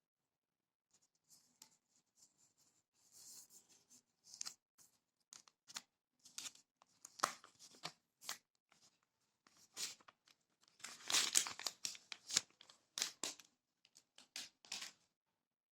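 Smartphone packaging being torn and unwrapped by hand: irregular tearing and crinkling rustles with small clicks, busiest about two-thirds of the way in.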